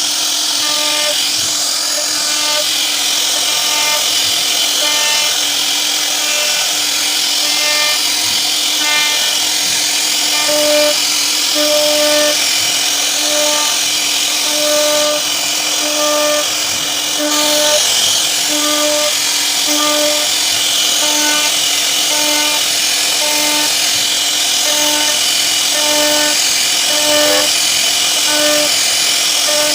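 CNC wood router spindle running steadily and cutting a round wooden post, with a high, even cutting noise. A regular pulsing tone repeats about once a second under the cutting.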